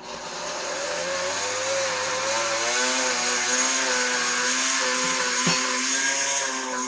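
Countertop blender motor spinning up and running hard, its pitch wavering, with a glass jar packed with roasted butternut squash chunks and olive oil. The mix is too thick for the blades to pull down, so it is not yet blending. A single sharp knock about five and a half seconds in.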